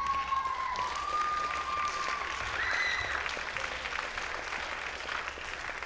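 Audience clapping steadily, with a few voices calling out over it.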